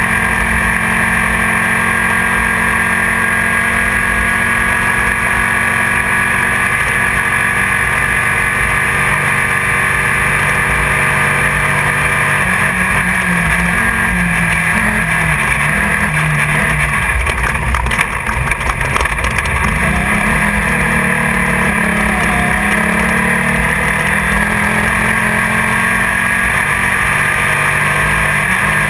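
Engine of a Class 1600 off-road race car running hard under load, heard from inside the car over rushing wind and road noise. Its pitch rises and falls with the throttle, and a short burst of rattling jolts comes about eighteen seconds in.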